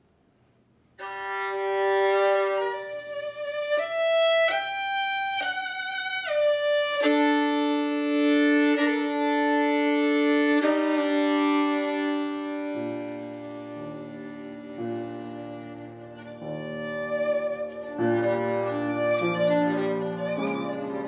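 Improvised duet on violin and upright piano. The violin comes in about a second in with long, held bowed notes, gliding down in pitch once, and the piano joins with low notes about halfway through.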